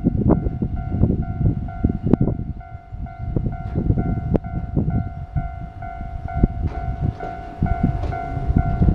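Japanese railway level crossing's electronic warning bell ringing in an even, repeating tone, over the low rumble and irregular knocks of a tram running across the crossing.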